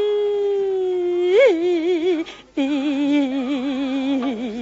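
A woman's voice singing in Suzhou tanci style: a long drawn-out note with wide vibrato that swoops up briefly, then, after a short breath, a lower held note with vibrato that sinks at the end of the phrase.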